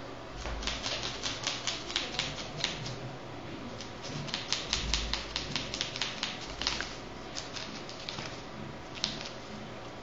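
Fingers scratching and tapping on a woven plastic floor mat: two runs of rapid sharp clicks, then only a few scattered clicks, with a couple of dull bumps.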